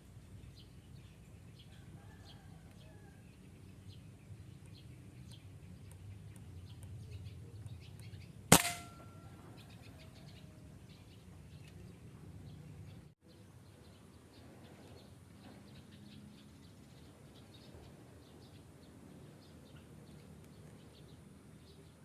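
A single sharp gunshot about eight and a half seconds in, the loudest thing by far, over small birds chirping steadily in the background.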